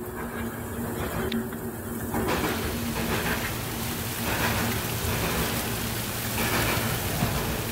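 Steady rain mixed with a freight train's refrigerator cars rolling past on wet rails, with a steady low hum under the noise.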